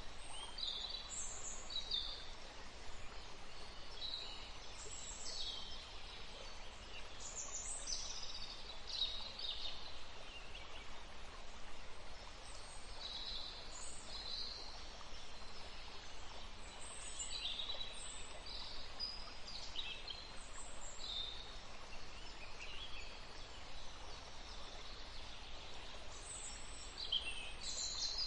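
Songbirds chirping and singing in short, high notes and brief trills, several birds calling on and off over a steady background hiss.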